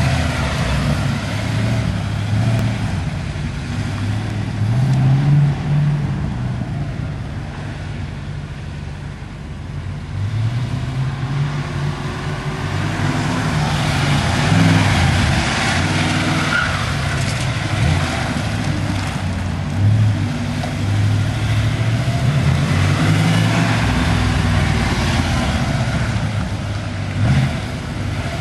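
Chevrolet Corvette's V8 engine revving up and falling off again and again as the car accelerates and brakes through an autocross cone course.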